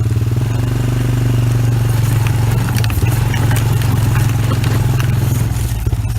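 ATV (four-wheeler) engine running steadily under load as it is driven over rough ground, with short rattling clatter from about two seconds in.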